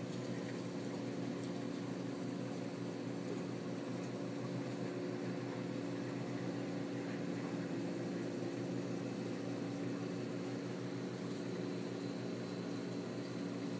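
Steady hum of saltwater aquarium equipment: pumps running, with several constant low tones over an even water hiss.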